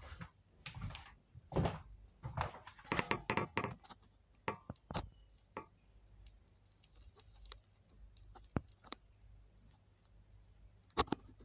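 Handling and movement noise beside the recording phone: irregular rustles, knocks and clicks, busiest in the first few seconds, then scattered single clicks, with a short cluster of clicks near the end.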